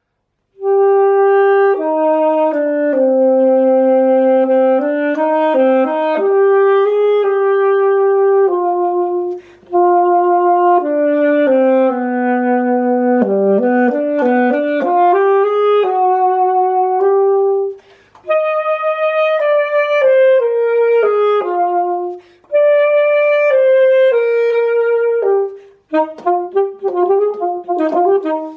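Yamaha YAS-32 alto saxophone played solo: a melody of held notes in phrases with short breaks between them, turning to a quick run of short notes near the end.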